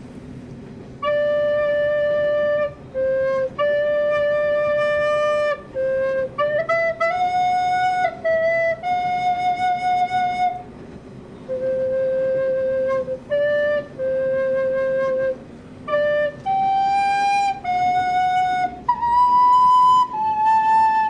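Recorder playing an improvised, unhurried melody of held single notes with short breaks between them. It starts about a second in and climbs to its highest notes near the end.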